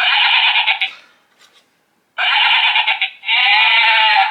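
AVANTEK D-3B plug-in wireless doorbell receiver playing its sheep chime: recorded sheep bleats, three in a row, the last one long and wavering.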